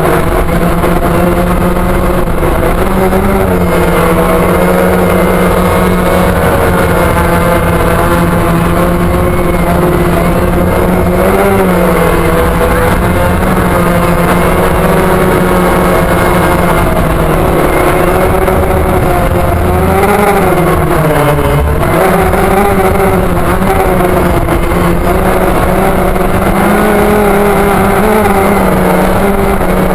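DJI Phantom quadcopter's motors and propellers buzzing in flight, heard from a camera mounted on the drone: a loud, steady hum whose pitch wavers up and down as the drone manoeuvres, about a third of the way in and again around two-thirds in.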